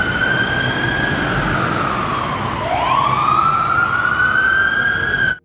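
Fire engine siren wailing. It holds a high pitch, slides down about halfway through, climbs back up, then cuts off suddenly at the end.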